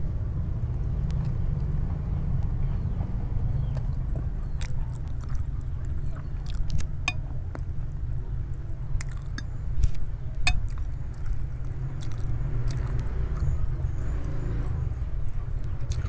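Eating instant noodles with a fork, with chewing and a few sharp clicks of metal cutlery on a glass plate, over a steady low rumble.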